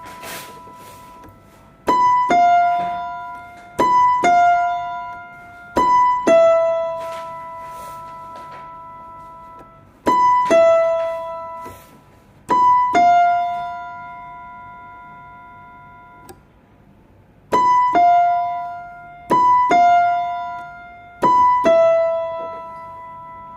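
Electronic keyboard playing a slow, scary-sounding melody in the high register. The notes come in pairs, each a higher note followed about half a second later by a lower one, and each is left to ring and die away before the next pair, with longer gaps around 8 and 15 seconds in.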